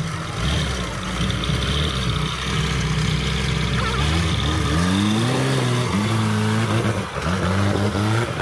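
Off-road 4x4's engine running under load on a steep dirt climb, revving up in rising surges about halfway through and again near the end.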